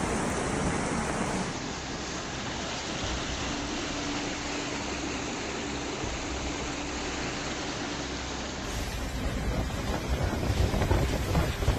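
Steady rush of fast-flowing muddy floodwater, mixed with wind buffeting the microphone. The noise changes abruptly twice as one phone recording cuts to the next.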